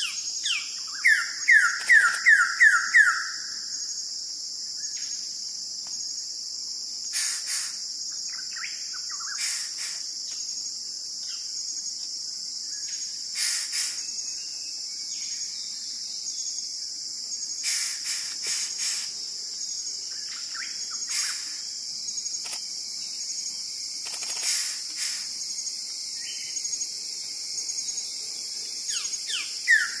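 Wilson's bird-of-paradise calling: a loud series of about six quick down-slurred notes about a second in, begun again near the end. Throughout there is a steady high insect drone, with scattered short calls of other birds.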